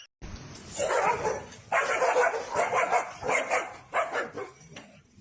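A dog barking, about five barks in a row.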